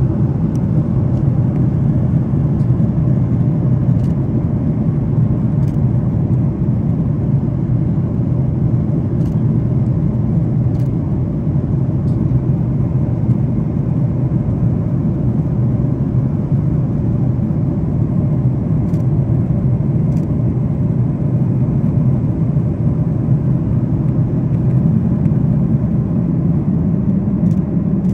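Airplane cabin noise in flight: a steady low rumble of engine and airflow heard from inside the cabin.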